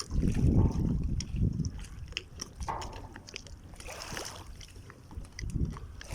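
Low wind rumble on the microphone for the first second and a half, then quieter water sloshing around a small boat, with scattered small clicks and knocks.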